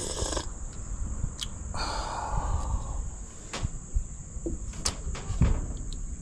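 Steady high-pitched insect chorus, with several sharp knocks and a brief rustling noise about two seconds in.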